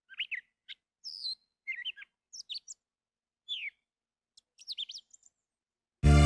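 Songbirds chirping: scattered short, quick calls, several sweeping down in pitch, over near-silence. Music comes in abruptly at the very end.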